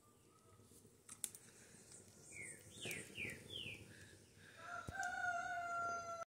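A rooster crowing: a few short falling notes, then one long held note that ends the crow. A sharp click about a second in.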